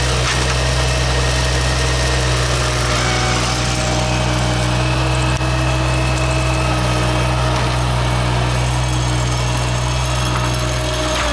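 John Deere 750 compact tractor's three-cylinder diesel engine running steadily at an even speed.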